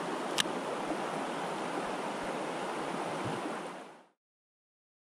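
Steady rush of flowing river water, with a single sharp click about half a second in. It fades out to silence about four seconds in.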